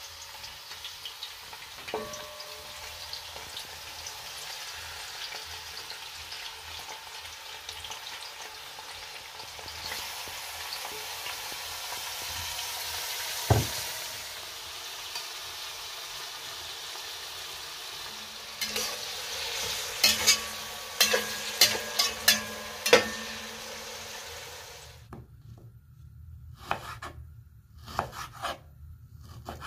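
Sliced onions and sweet peppers sizzling as they fry in a metal pot, with sharp clinks of a utensil stirring against the pot for a few seconds past the middle. Near the end the sizzling stops and a knife makes a few soft strokes slicing raw meat on a board.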